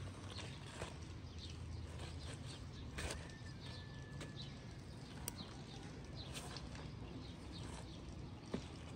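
Outdoor garden ambience after rain: scattered small bird chirps and a short whistled note over a steady low background hum, with a few soft knocks and footsteps on the wet path.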